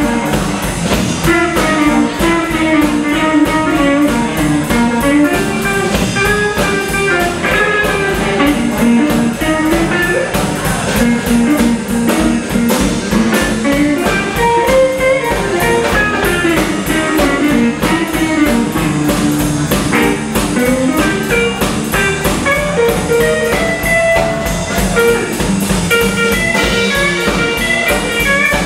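Live electric blues band playing an instrumental passage with no singing: electric guitar over electric bass and a drum kit.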